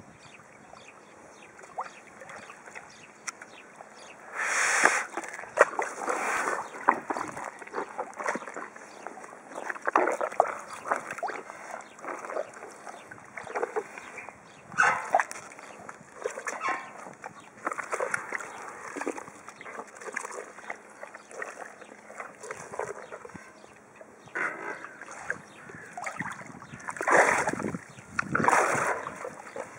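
Water splashing and sloshing as a hippopotamus moves in its pool, in irregular bursts, the loudest about five seconds in and twice near the end.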